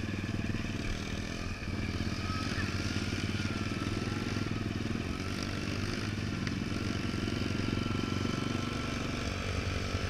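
Motorcycle engines running steadily at low speed: the following dirt bike and a child's TR50F mini moto riding slowly along together. A thin high whine comes in about two seconds in and holds.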